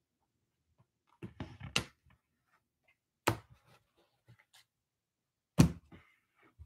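Rigid plastic card top loaders clacking against each other and the table as they are gathered into a stack. There is a quick cluster of taps just over a second in, a sharp clack a little past three seconds, and the loudest knock near the end.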